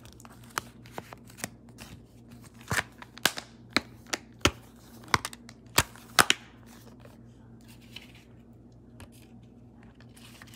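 Sharp clicks and taps from a plastic Blu-ray case being handled, about a dozen, unevenly spaced and loudest in the middle, thinning out after about six seconds.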